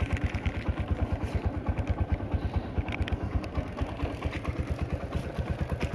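TVS Apache RTR 160's single-cylinder four-stroke engine idling steadily, a fast even beat of about ten pulses a second, being warmed up before an oil change.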